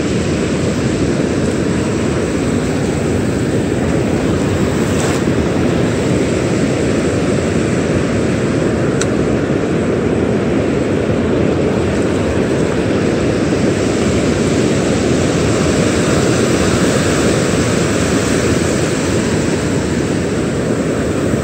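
Steady, loud roar of ocean surf breaking on a sandy beach, with a couple of faint clicks.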